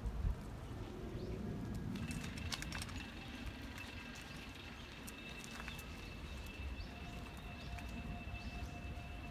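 Quiet outdoor ambience: a low rumble of wind or handling noise with faint bird chirps and a few light ticks, and a thin steady high tone from about two seconds in.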